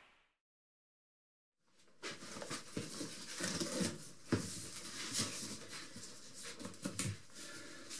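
Silence for about two seconds, then cardboard rustling, scraping and knocking as the flaps of a large cardboard box are opened and pushed aside.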